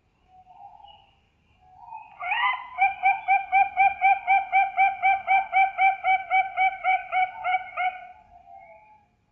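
Perkutut (zebra dove) cooing: a soft lead-in, then a fast even run of about twenty short cooing notes, three or four a second, lasting about six seconds.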